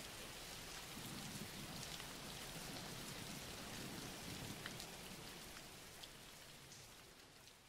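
Faint, steady rain falling, with scattered drop ticks, fading out toward the end.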